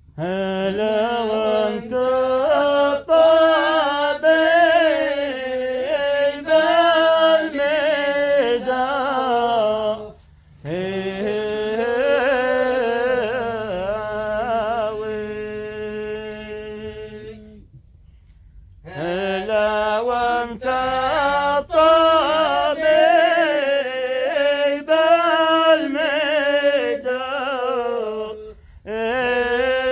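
A single unaccompanied voice sings a traditional Yemeni ma'ayna song in long, wavering, ornamented phrases. Short breaks fall between the phrases, and about halfway through there is one long, steady held note.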